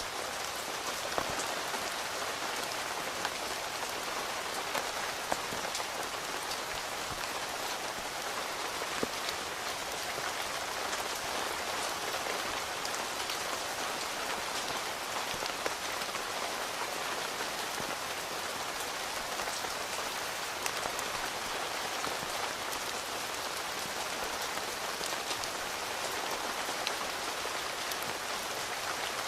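Steady rain falling on a tent, heard from inside, with many scattered individual drops ticking on the fabric.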